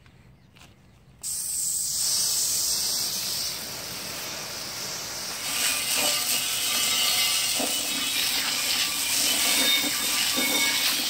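A garden hose spray nozzle is switched on about a second in, and a jet of water hisses and splashes against a steel wheel rim, rinsing off the oxalic acid. The spray grows louder and fuller about halfway through.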